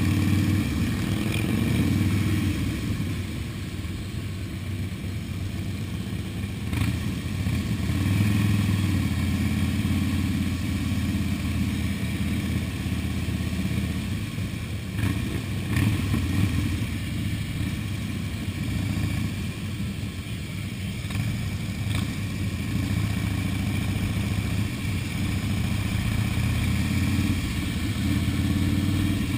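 Motorcycle engines running at parade pace, heard from the rider's helmet: the ridden bike's engine note swells and eases with the throttle, with other motorcycles close by.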